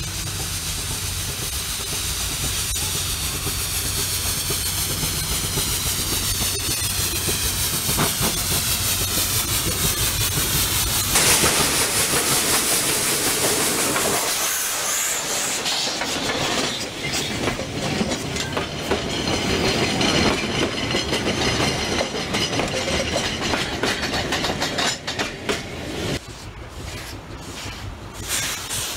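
Steam locomotive working uphill on a mountain rack railway, coming closer and passing, with a loud burst of steam hiss about eleven seconds in. Its wooden carriages then roll past with rail clatter.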